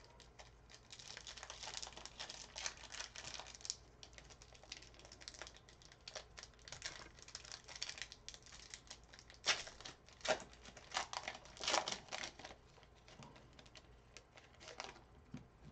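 Basketball trading card pack wrappers being torn open and crinkled by hand. An irregular crackling comes in bursts, loudest about a second in and again around ten to twelve seconds in.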